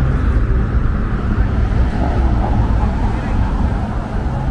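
City street traffic: cars driving through an intersection, with wind rumbling on the microphone and faint voices of people nearby.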